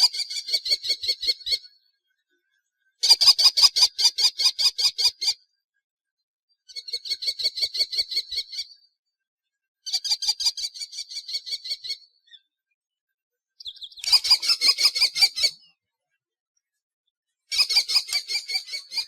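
Kestrel giving its shrill, repetitive kee-kee-kee call. It comes in about six bursts, each a rapid string of notes lasting roughly two seconds, with short silent gaps between them.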